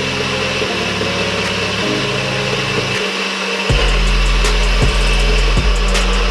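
Nutribullet 600W personal blender motor running at high speed, a steady hum and whine that gets louder and heavier about two-thirds of the way through, with sharp clicks about once a second.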